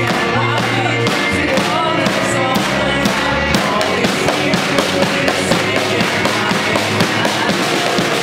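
Live rock band playing an upbeat worship song: drum kit with cymbals, electric guitars, bass notes and keyboard, with voices singing over it.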